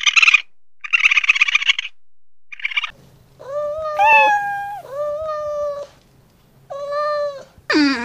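Domestic cat meowing four times in a row, each meow a clear held note, starting about three and a half seconds in. Before it come three short, rasping animal calls, and just before the end a different call falls sharply in pitch.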